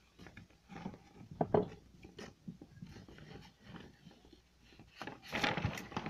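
Irregular rubbing and rustling of a sheet of paper and fingers handling the recording device close to its microphone, loudest about five seconds in.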